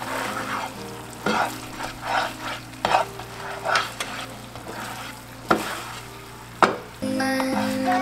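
Spatula stirring and scraping through bubbling, sizzling liquid in a nonstick frying pan, in a run of swishes, then two sharp taps against the pan about five and a half and six and a half seconds in. Background music becomes louder near the end.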